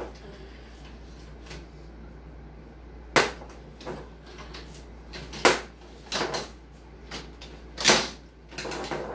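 Tabletop foosball in play: irregular sharp clacks as the plastic figures on the rods strike the ball and the ball knocks against the table. About ten clacks, the loudest about three seconds in, around five and a half seconds, and near the end.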